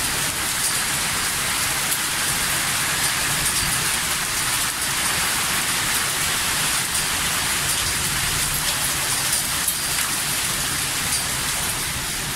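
Heavy rain with hail pouring down outside: a steady, dense hiss of rain with faint, scattered small ticks of impacts.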